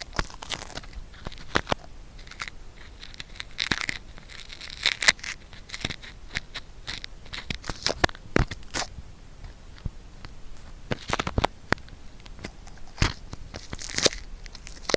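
Adhesive cotton swab rubbing and scraping inside an ear, heard close up as irregular crackling and scratching with sharp clicks.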